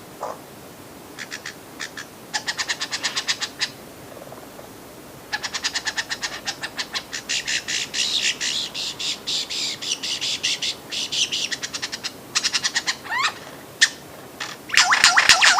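Lyrebird singing: several bouts of fast, high, clicking trills separated by short pauses, with a quick rising whistle near the end.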